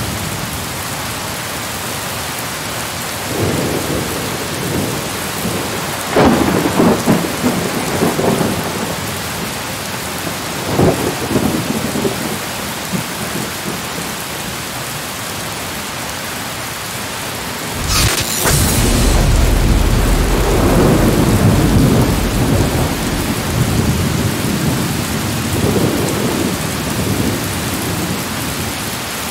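Steady rain hiss with several low rolls of thunder. About two-thirds of the way through, a sharp thunderclap sets off a long rumble that lasts several seconds.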